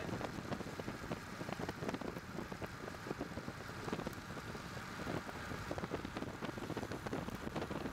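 Wind and rain on the microphone under a thunderstorm: a dense, uneven crackle of many small pops and rustles.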